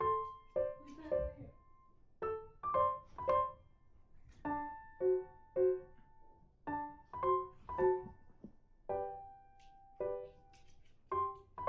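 Background music: a light piano tune of short notes that fade quickly, played in repeating phrases of about three notes.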